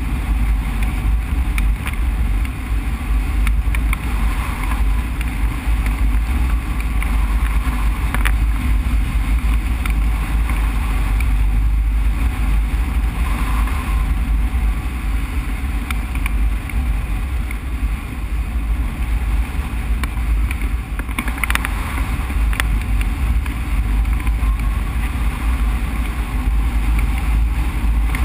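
Wind rushing over the microphone of a hang glider in flight, a steady heavy rumble with a hiss of airflow above it.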